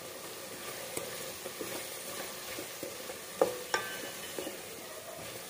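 Thick masala paste frying in oil in a metal pot, sizzling gently under the scrape of a spatula stirring it, with two louder clinks of the spatula against the pot about three and a half seconds in. The paste has cooked to the stage where the oil separates.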